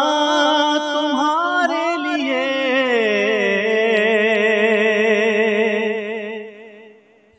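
A man singing a naat with no instruments, drawing out a long melodic run on one line that settles into a held note with vibrato and fades out near the end.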